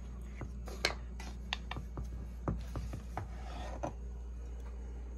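Hands handling a crossbow: scattered light clicks and knocks with a little rubbing, over a steady low hum.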